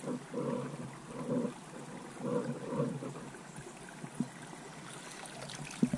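Creek water trickling while a wire crawdad pot is pulled through the shallows on a rope, with two short knocks near the end.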